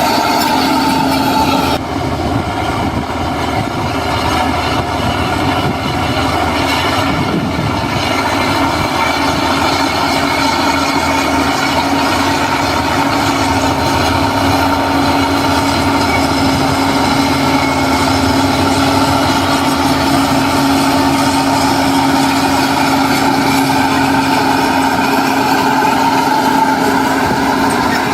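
Diesel engine of heavy earthmoving machinery running steadily with an even drone, dipping briefly about two seconds in.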